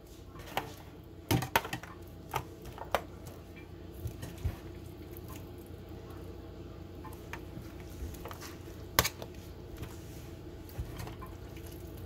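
Scattered taps, clicks and soft squishes of a spatula moving pickled onion, carrot and pepper slices around a disposable aluminium foil pan, the sharpest taps about a second and a half and nine seconds in, over a faint steady hum.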